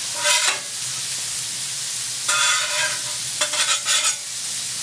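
Burger patties and onions sizzling on a Blackstone flat-top griddle, with a metal spatula scraping across the steel surface three times.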